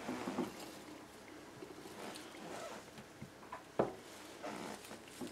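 Quiet handling noises at a kitchen counter: faint rustling, with one sharp tap about four seconds in.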